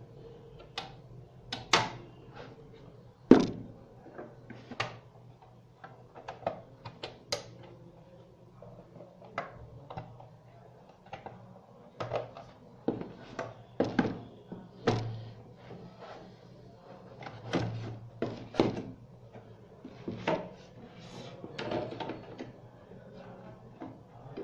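Hands working on a DVR's case during assembly: irregular clicks and knocks, the loudest about three seconds in.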